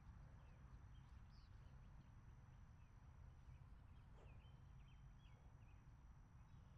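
Near silence outdoors: faint background hum with a few faint bird chirps and a thin steady high tone that breaks off briefly about halfway through.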